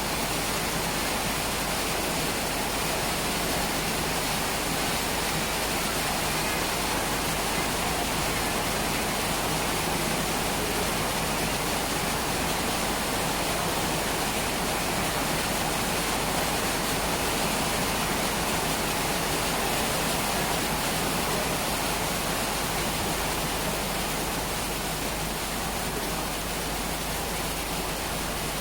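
Steady rain falling, a continuous even hiss with no single drops or thunder standing out.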